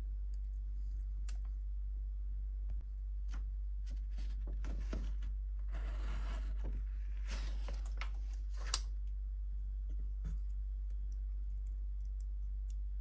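Faint scraping and clicking handling noises, from fingers on a small plastic component and a pen on paper, over a steady low hum. A rough scraping stretch falls in the middle, and a single sharp click comes about nine seconds in.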